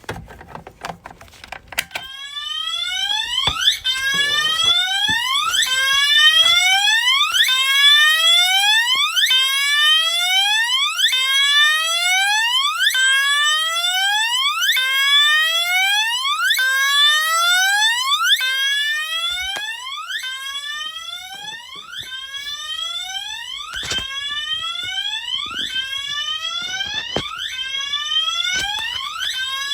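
Fire alarm sounding a whoop tone: a rising sweep repeated about once a second, starting about two seconds in. A few sharp clicks sound over it near the end.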